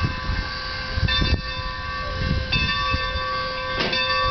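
Steam locomotive bell on Skunk Train No. 45, a Baldwin 2-8-2, ringing as the engine backs up, struck every second or so with its ring sustaining between strikes. Underneath it sits the low rumble and chuff of the moving locomotive.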